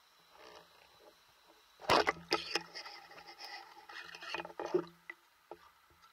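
Underwater handling noise from a diver's gear: a sudden knock about two seconds in, then about three seconds of clicking, knocking and scraping with a low hum under it, before it settles back to a faint hiss.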